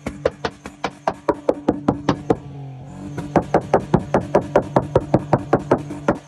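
Exhaust of a modified car popping in a fast, even rhythm, about six sharp pops a second, over the steady drone of the running engine. The pops briefly fade about two and a half seconds in, then pick up again.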